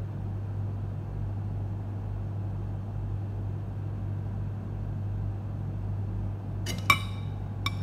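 Steady low hum and rumble of a running appliance in the room. Near the end come two sharp clinks of a metal spoon against a ceramic plate, the first the louder.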